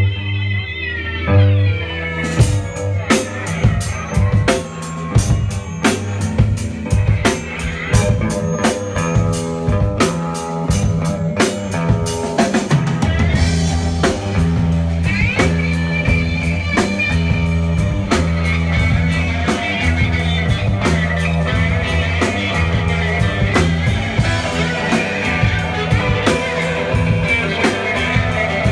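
Rock band playing live on electric guitars, bass and drum kit. The drums come in about two seconds in and keep a steady beat under the guitars.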